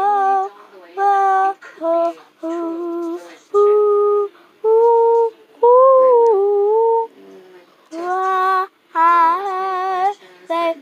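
Young girl singing unaccompanied: a string of held, separate sung notes with short breaks between them, the last few wavering with vibrato.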